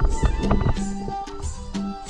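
Background music: a folk-style tune with sustained repeating notes and a steady percussion beat.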